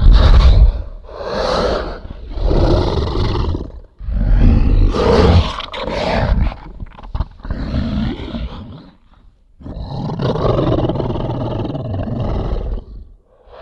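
Designed kaiju roar sound effect, frog calls mixed with Godzilla roars: a string of about six loud roars with a heavy low end, the loudest at the very start and a longer, steadier one near the end.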